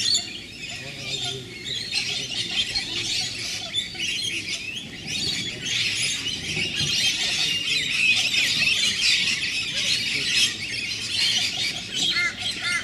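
A flock of rainbow lorikeets screeching and chattering together, a dense, continuous din of shrill calls.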